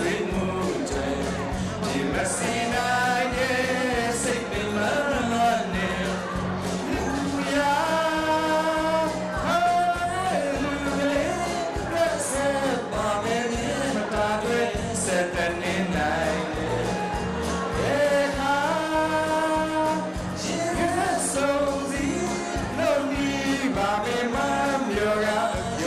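A man singing a song into a handheld microphone, with instrumental accompaniment.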